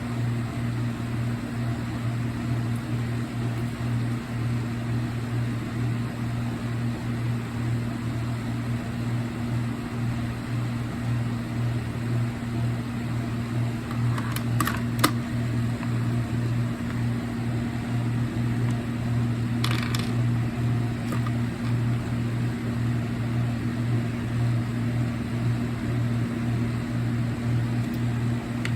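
A steady low hum runs throughout, with a few light clicks of small parts being handled, about halfway through and again a few seconds later, while wires are being fitted with wire caps.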